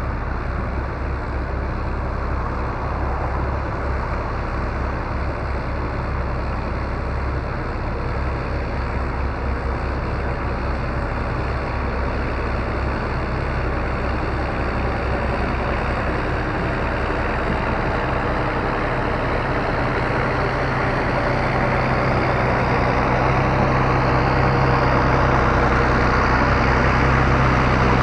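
A heavy vehicle's engine running steadily. It grows gradually louder and deeper over the last several seconds.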